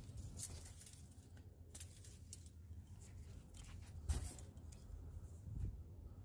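Faint, scattered clicks and rustles of the engine oil dipstick being handled: wiped off and slid back into its tube to recheck the level. The loudest click comes about four seconds in.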